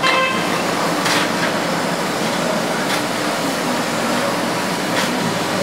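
Steady hiss of steam from a standing Darjeeling Himalayan Railway B-class saddle-tank steam locomotive, with a few faint metal clanks about a second, three seconds and five seconds in as its firebox is worked.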